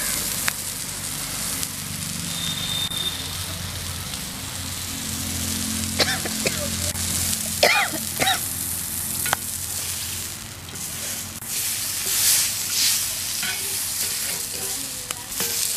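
Oil sizzling steadily under a whole squirrel frying on a flat iron griddle. It is still sizzling, a sign the meat is not yet cooked through: the cook says it is done when the sizzling stops. A metal spatula scrapes on the griddle in the second half.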